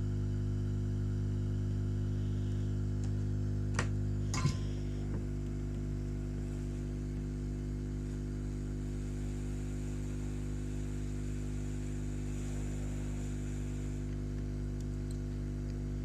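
Steady electrical hum from the repair bench, with two short clicks about four seconds in.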